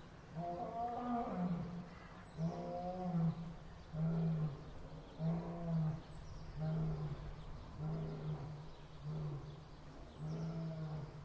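Lion roaring: one long roar, then a series of about eight shorter grunting calls about a second apart, the usual close of a lion's roaring bout.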